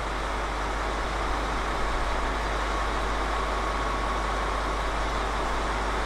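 Diesel engines of a JR Hokkaido KiHa 261 series 5000-subseries express railcar idling steadily while the train stands waiting.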